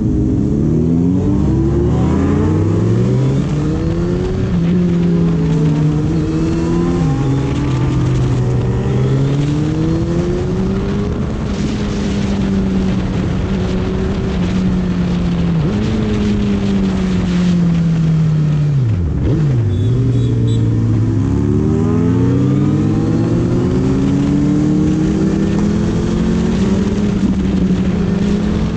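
Suzuki Hayabusa 1300's inline-four engine pulling through the gears on the road. The revs climb and drop back at each shift, then fall away sharply about two-thirds through and build up again.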